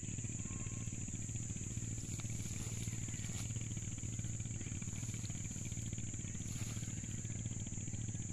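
A steady insect chorus, a constant high-pitched buzz, over an even low hum.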